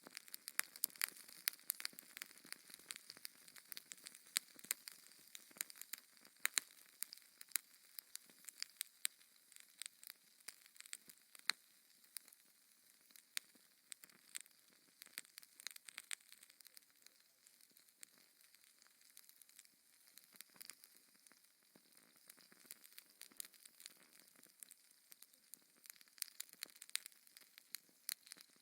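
Wood fire crackling in a fireplace: irregular sharp pops and snaps over a faint hiss, thicker in the first half and again near the end.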